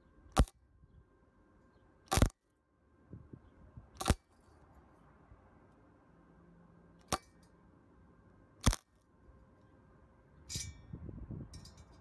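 Harbor Freight Titanium Flux 125 flux-core welder striking short tack arcs: five brief sharp pops, one or two seconds apart. The welder is set near its lowest voltage with the wire feed speed turned up, and the tacks are not holding on the thin exhaust metal. A rougher scuffling noise follows near the end.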